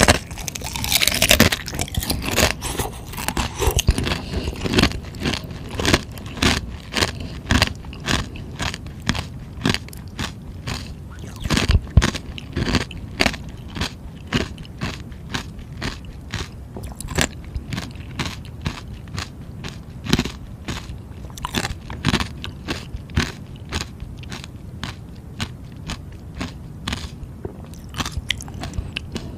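A person biting into and chewing frozen purple ice close to the microphone: a few hard crunching bites at the start, then a steady run of crunches as the ice pieces are chewed, about one or two a second.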